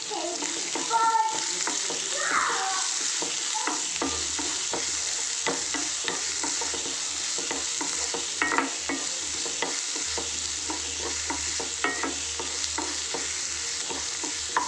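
Chopped onions sizzling steadily in hot oil in a kadai while a spatula stirs them, with frequent short scrapes and knocks of the spatula against the pan.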